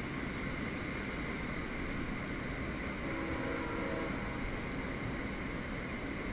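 Steady hum and hiss of a stationary VIA Rail Siemens Venture passenger train idling, with a faint tone briefly about three seconds in.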